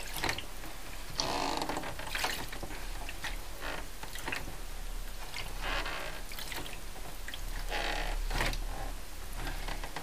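Lith developer sloshing in a darkroom print tray: soft swishes of liquid now and then as the print is agitated during development.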